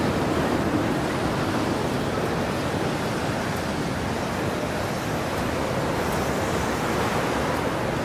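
Snowstorm wind blowing steadily, an even rush of noise with no gusts or breaks.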